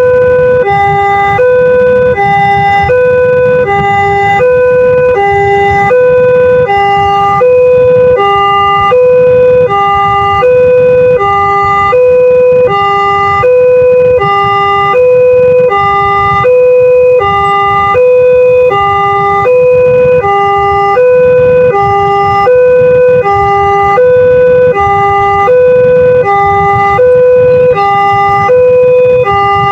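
Railway level-crossing warning siren of the Multec type, sounding a loud, fast high-low two-tone alternation that repeats evenly without a break: the crossing alarm that sounds while the barrier is closed for an approaching train.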